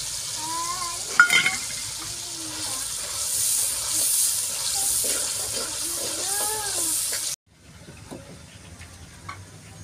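Onion, tomato and yogurt masala sizzling as it fries in an aluminium pot while being stirred with a steel ladle, with a sharp knock about a second in. The sizzle cuts off abruptly about seven seconds in, leaving quieter background sound.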